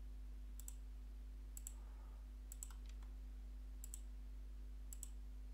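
Computer mouse clicking about five times, roughly a second apart, each click a quick double tick of button press and release, over a steady low hum.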